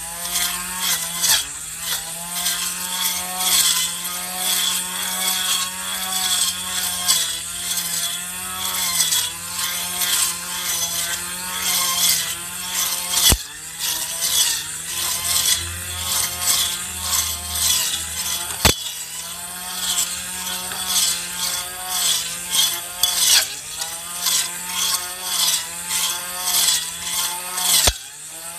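Small handheld grass trimmer with a toothed metal blade running steadily, its motor tone dipping and recovering as the blade cuts through clover and grass. A few sharp clicks come as the blade strikes something hard.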